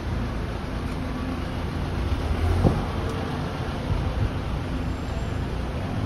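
City street traffic: a steady low rumble of passing vehicles, with a short thump about two and a half seconds in.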